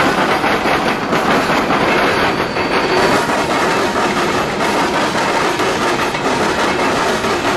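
A long train of empty steel coal hopper cars rolling past close by, its wheels clattering steadily over the rails.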